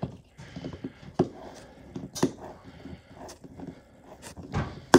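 Needle-nose pliers gripping and turning a threaded drywall anchor into drywall: irregular sharp clicks with scraping between them, and a louder knock near the end.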